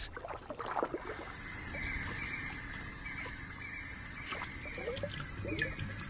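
Water sloshing and trickling, with a thin steady high-pitched tone running over it from about a second in.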